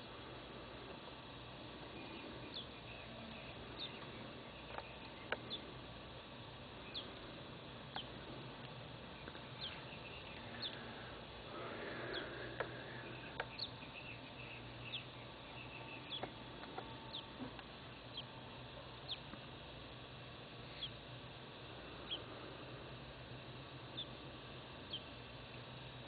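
Birds calling: short, high chirps that slide downward, repeated about once a second, over a faint steady low hum.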